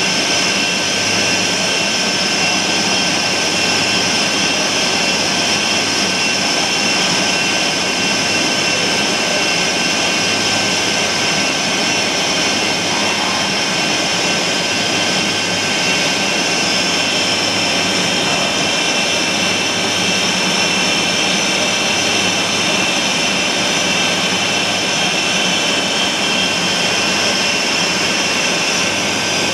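Tsugami BN20 CNC Swiss-type lathe machining under flood coolant: a loud, steady mechanical whine with several high tones over a constant wash of noise and a low hum.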